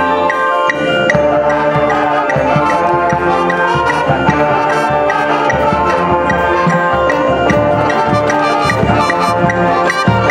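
High school marching band playing live: clarinets, saxophones and sousaphones with other brass over a steady beat of drums and percussion.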